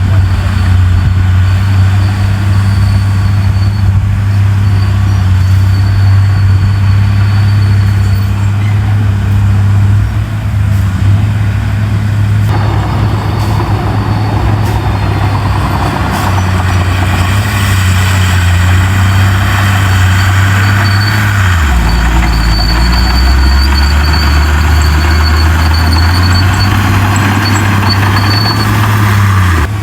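Heavy diesel engine of earthmoving machinery running under steady load. About two-thirds of the way through its pitch drops as the engine slows, and it picks up again near the end.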